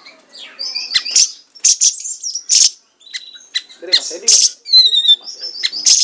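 Caged siri-siri bird singing fast and full: bursts of sharp, high chirps and whistled notes fired in quick succession, with a quick run of falling notes near the end.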